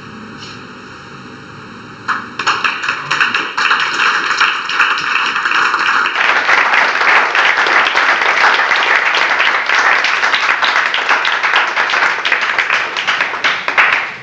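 Audience applause at the end of a performance: scattered claps begin about two seconds in, swell into full, dense clapping from about six seconds, and fall away near the end.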